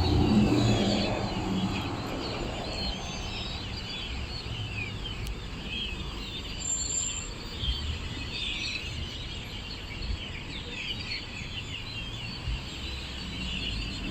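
Many small birds chirping continuously, over a low traffic rumble that is strongest in the first second or two and then eases.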